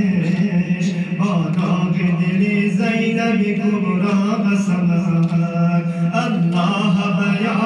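A man chanting a Shia mourning lament (noha) into a microphone in long held, wavering notes without a break.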